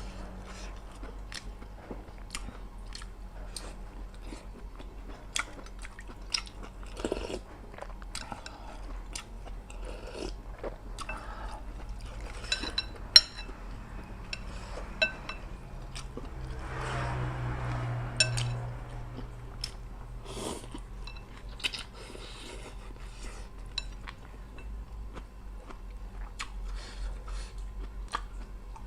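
Close-up chewing and biting of a mouthful of rice noodle soup with tuna fish cakes, with many short wet mouth clicks scattered throughout. A longer, louder stretch of noise comes about two-thirds of the way through.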